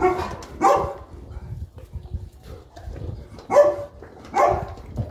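Boerboel barking in short, separate barks: two in quick succession at the start, then two more about three and a half seconds in.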